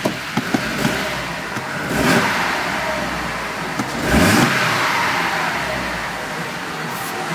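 Ford Galaxy's 2.3-litre petrol four-cylinder engine (Y5B) running just after starting. Its revs swell briefly with throttle blips about two seconds in and again about four seconds in, then settle back to idle.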